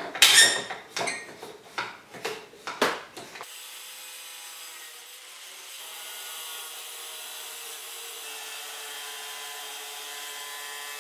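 A few sharp metallic clanks as the wire grill grate is handled and clamped. About three and a half seconds in, an angle grinder with a cutoff wheel starts running steadily, cutting through the grate's wires.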